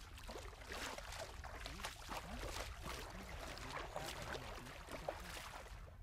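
Faint, irregular splashing and sloshing of feet wading through shallow seawater.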